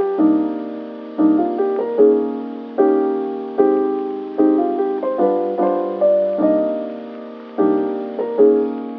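Lo-fi background music: soft piano chords struck a little more than once a second, each ringing and fading before the next.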